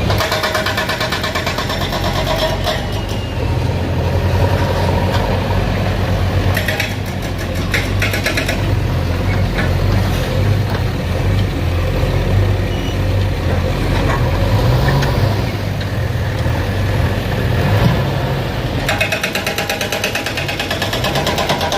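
An engine running steadily with a low hum, joined at times by a fast, even mechanical clatter.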